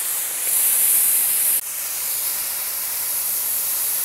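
Oxy-fuel cutting torch on a pipe beveler hissing steadily as its jet cuts through the wall of a 30-inch steel pipe. The hiss dips briefly about one and a half seconds in.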